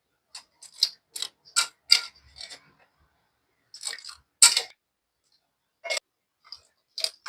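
Raw potato wedges knocking and clinking against a kitchen vessel as they are handled, a string of irregular sharp clicks and knocks, the loudest about four and a half seconds in.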